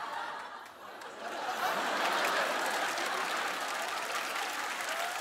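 Studio audience laughing and applauding, swelling about a second in and holding steady.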